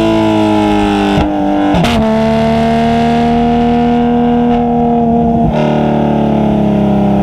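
Porsche 991.2 GT3 RS's 4.0-litre flat-six running through headers and a straight-piped, muffler-deleted exhaust. It gives a loud, raspy, steady drone whose pitch steps down at short breaks about one and a half and five and a half seconds in, and again near the end.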